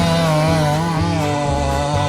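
Chainsaw running at a steady loud level, mixed with background music.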